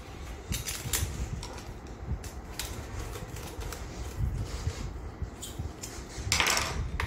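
Light scattered clicks and taps of an inline skate's axle bolt, hex key and frame being handled as a wheel is bolted back on, with a brief louder rustle near the end as the skate is lifted.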